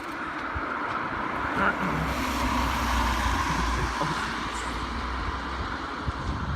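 A road vehicle driving past, its engine rumble and tyre noise swelling to a peak about three seconds in and then easing off.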